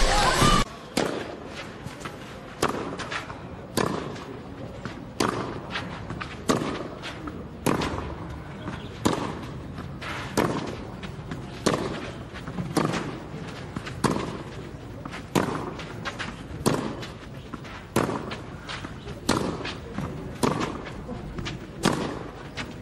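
Tennis racquets striking the ball in a long baseline rally, a sharp pop about every second and a quarter.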